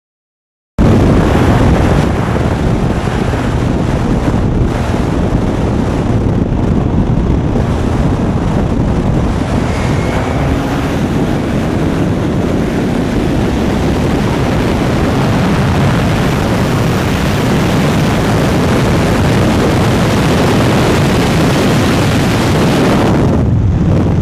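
Straight-piped BMW E36 M3 inline-six at full throttle, accelerating hard from a rolling start, heard from inside the car with heavy wind buffeting on the microphone. The loud, distorted engine and wind noise cuts in abruptly about a second in and runs on steadily.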